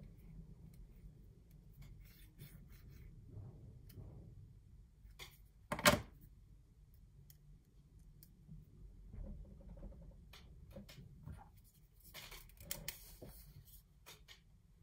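Hand tools handled on a wooden desk: faint scattered clicks and taps, with one sharp knock about six seconds in and a short run of clicks and rustling about twelve seconds in.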